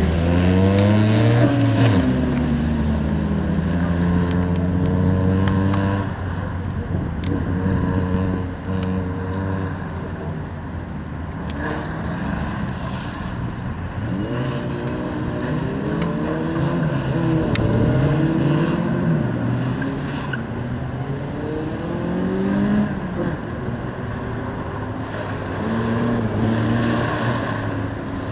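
A car's engine driven hard, revving up and dropping back again and again as it accelerates and slows through a tight cone course, its pitch rising and falling with each burst.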